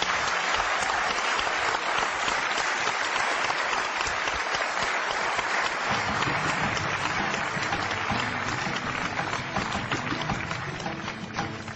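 Audience applauding steadily; about halfway through, music with a low bass line starts up underneath the clapping.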